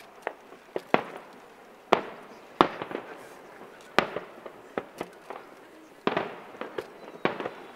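Aerial fireworks bursting in a quick, irregular series of about ten sharp bangs, each trailing off in a rolling echo.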